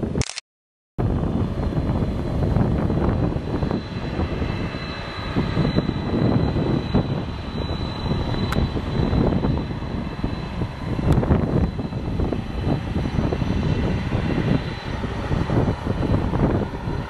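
Boeing 747-400's jet engines running at low power as the airliner taxis: a loud, rough rumble with a thin, steady high whine through the middle. The sound drops out for about half a second just after the start.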